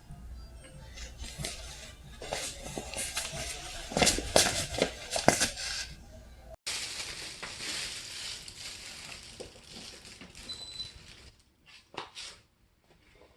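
Irregular clicks, knocks and crinkly rustling of things being handled. After an abrupt cut a steady hiss follows, which stops a couple of seconds before the end, and there is a single sharp click near the end.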